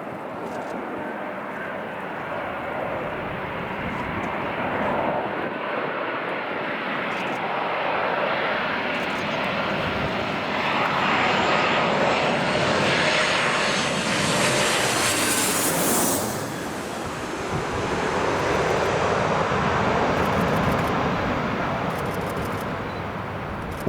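Airliner engines passing close by, their noise building to a peak with a high whine about two-thirds of the way through, then easing off.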